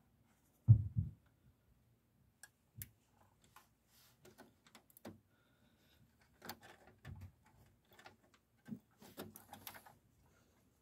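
Hands working inside a computer during a RAM swap: scattered sharp clicks, taps and short rattles of parts being handled, with a heavy low thump about a second in.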